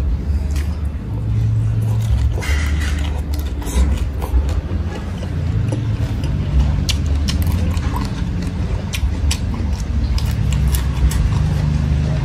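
Close-up chewing of crunchy green papaya salad and raw greens, with many short wet crunches and mouth clicks over a steady low rumble.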